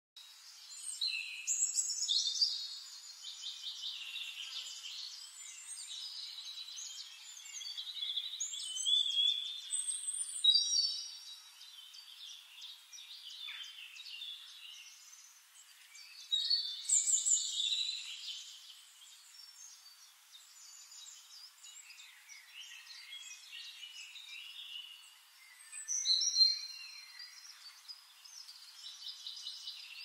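Small songbirds singing: quick trills and chirped, whistled phrases that come in louder bursts every several seconds, with quieter chirping between them.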